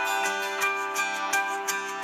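Instrumental background music with a light, steady beat.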